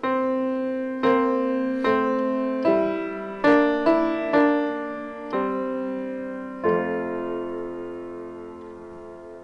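Solo piano playing a slow passage of struck chords, about one a second, each ringing and fading. About two-thirds of the way through it ends on a long held chord that slowly dies away.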